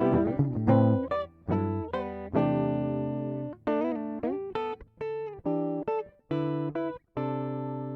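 Guitar music: quick plucked notes at first, then separate chords and short phrases that ring out and die away between brief pauses, ending on a long held chord.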